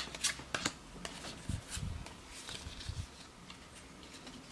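Faint handling of Pokémon trading cards: a few light clicks and taps in the first second, then a few soft bumps around the middle.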